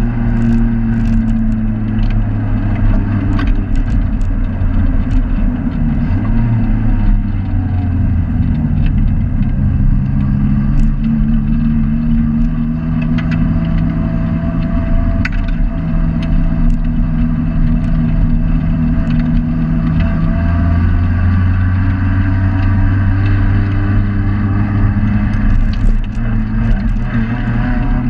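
Race-prepared Neon's four-cylinder engine heard from inside the cabin, running at fairly steady, moderate revs that drift gently up and down, with scattered clicks and rattles.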